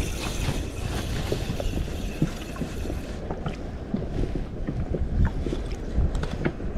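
Small waves slapping and knocking against the hull of an inflatable boat, with wind on the microphone; a brighter hiss sits over it for the first three seconds.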